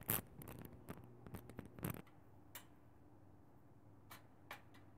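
Metal fork and spoon clicking and scraping against a glass plate while rice and beef are picked up: a quick flurry of small clicks over the first two seconds, then a few scattered light taps.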